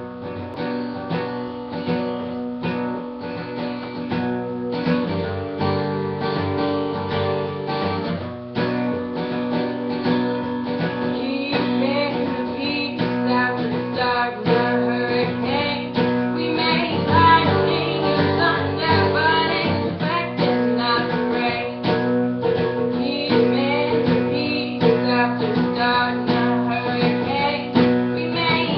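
Acoustic guitar strummed in a steady rhythm, with a woman's voice singing over it from about eleven seconds in.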